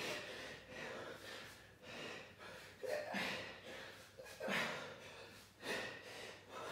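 A man breathing hard while swinging a kettlebell, with a sharp forceful exhalation on each swing, about one every second or so.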